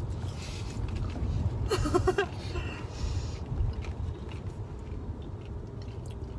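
Steady low rumble inside a moving car's cabin: road and engine noise while driving, with a few brief rustling sounds in the first half.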